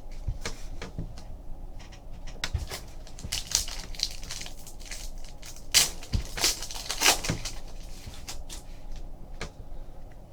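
Crinkling and crackling of a foil trading-card pack wrapper being handled, loudest about six to seven seconds in.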